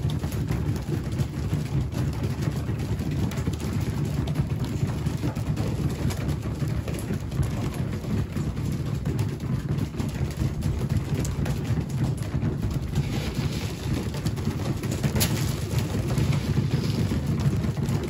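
A flock of pigeons pecking seed off a concrete floor: a dense, rain-like pattering of beak taps, with a few sharper taps near the end, over a steady low rumble.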